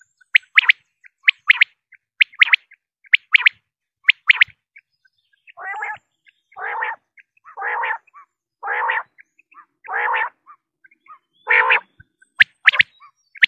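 Common quail calling. Sharp, clipped high notes come in pairs about once a second for the first few seconds and again near the end. In between are six lower, harsher calls about a second apart.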